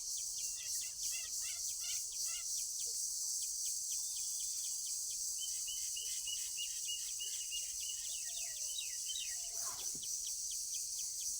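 Steady high-pitched insect chorus, with birds chirping over it in short repeated notes and a quick run of chirps from about halfway to near the end.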